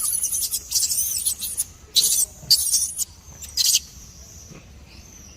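Baby monkey squealing: a run of high-pitched, wavering squeals and short shrill cries in the first few seconds, dying away near the end.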